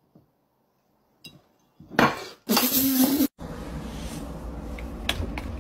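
A drinking glass clinks with a brief ring, then clatters loudly twice as a cat with its head stuck inside it jostles it on a wooden table. After an abrupt cut comes a steady low background noise with a few sharp ticks.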